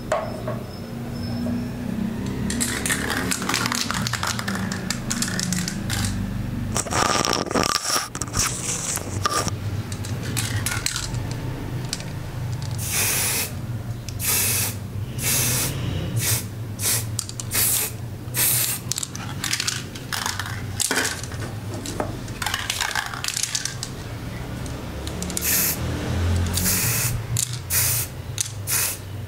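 Aerosol can of black spray paint sprayed onto the scissors in many short hissing bursts, over a steady low background hum.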